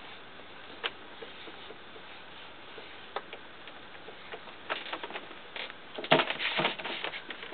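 Pastel stick scraping and rubbing on paper in short strokes, with a few faint clicks at first; the strokes come thicker and louder in the last few seconds.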